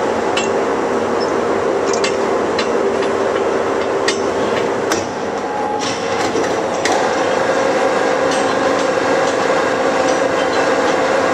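Steady humming machinery noise with sharp metal clanks and knocks from tools striking steel. The hum drops away about five seconds in and returns with a slightly different pitch about two seconds later.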